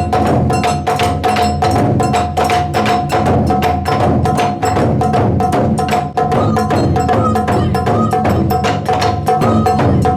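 Taiko drum ensemble playing a fast, steady pattern of sharp strikes, several a second. A held high tone runs underneath, and short higher notes enter about halfway through.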